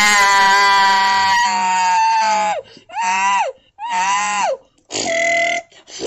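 A boy's voice making wordless, drawn-out dinosaur cries for a toy dinosaur: one long held cry of about two and a half seconds, then three shorter cries that rise and fall in pitch.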